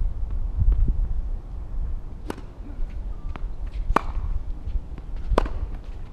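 Three sharp pops of a tennis ball being hit, about a second and a half apart, over a steady low rumble of wind on the microphone.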